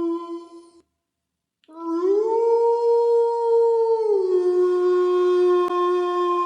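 Canine howling. One long, steady howl ends just under a second in. After a short gap a second howl starts, rises in pitch, holds, then drops to a lower note and holds on. A brief click comes near the end.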